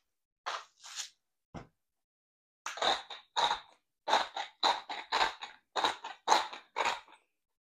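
Hand-twisted salt and pepper grinders grinding over chicken cutlets: a couple of short crunches from the salt grinder, then, after a pause, a steady run of gritty ratcheting crunches from the pepper grinder, about three a second.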